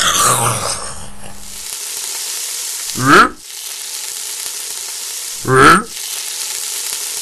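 A steady sizzling hiss runs under two short, creature-like cries that rise and fall in pitch, about two and a half seconds apart. The tail of a louder growl fades out in the first second.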